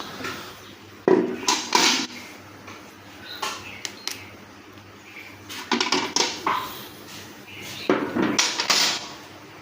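Metal objects clattering and knocking together in four short bursts about two seconds apart.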